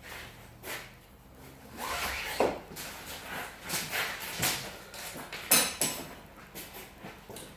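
Ratchet straps being handled: irregular knocks, clinks and rubbing as the metal hooks and buckles bump about and the webbing is pulled, with the sharpest knock about five and a half seconds in.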